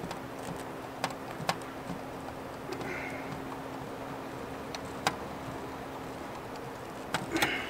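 A hand screwdriver turning screws into a steel plate fixed to a fabric wall: a few scattered sharp clicks and scrapes, over a steady low hum.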